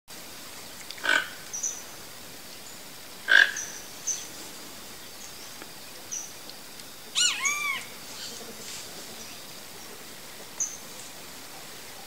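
Toco toucan giving two croaks about two seconds apart, with short high chirps from other birds around them. A little past the middle, another bird gives a quick run of ringing notes that rise and fall.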